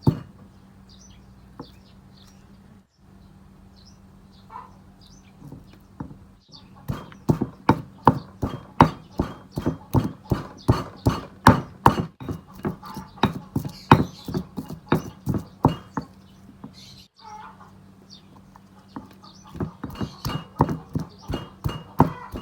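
Rapid, even knocking of food being prepared in the kitchen, about four strokes a second, in runs broken by short pauses, over a faint steady hum.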